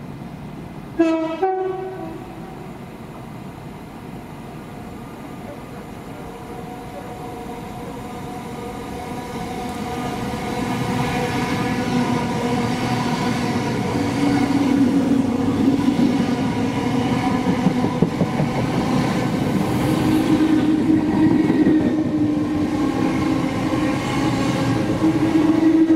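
Class 325 electric mail train sounding a brief two-tone horn about a second in, then running through the station. The noise of its passing grows from about eight seconds in and is loudest for the last ten seconds or so, with a steady hum running through it.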